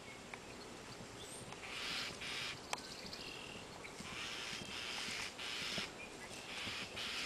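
Outdoor animal or bird calls in harsh bursts about a second long, coming every couple of seconds, with one sharp click near the middle.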